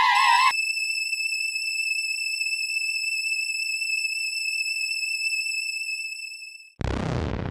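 Soundtrack of an animated film: a wavering electronic tone gives way, about half a second in, to a steady high-pitched tone. The tone fades out near the end, and music starts abruptly.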